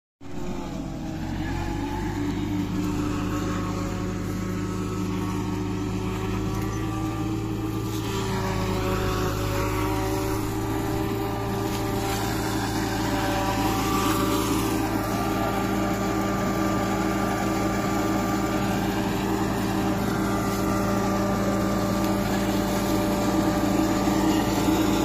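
Tractor engine running steadily under load, driving a tractor-mounted forage harvester that cuts standing maize and chops it for silage.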